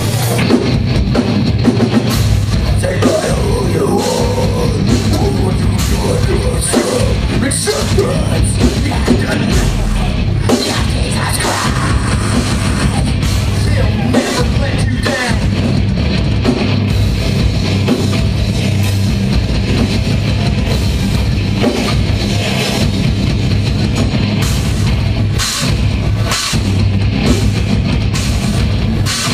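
Live metalcore band playing at full volume: heavily distorted guitars, bass and fast, dense drumming.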